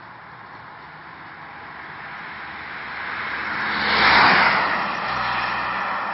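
A road vehicle passing close by: tyre and engine noise building steadily to a peak about four seconds in, then dropping away into a steadier hum.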